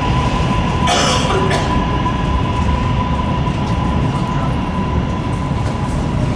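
New York City subway train running through the tunnel: a steady low rumble with a steady high whine over it, and a short clatter of wheels on the rails about a second in.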